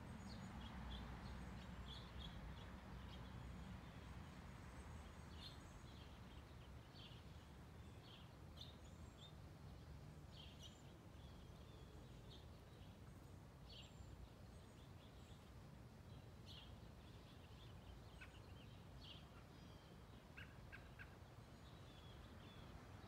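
Small birds chirping at intervals, faint, over a low steady rumble.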